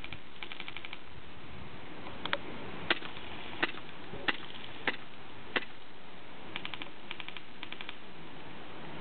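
Airsoft guns firing: short rapid bursts of clicking full-auto fire near the start and again after about six seconds, and in between a string of louder single shots about two-thirds of a second apart.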